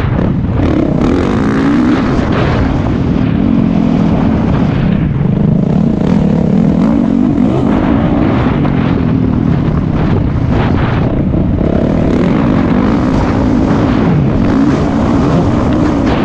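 Motocross bike engine racing at full pace, its revs wavering up and down with throttle and gear changes, easing off briefly a couple of times, heard from the rider's helmet.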